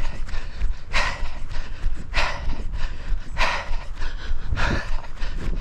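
A runner breathing hard close to the microphone, one loud, hissy exhale about every 1.2 seconds. A steady low rumble sits underneath.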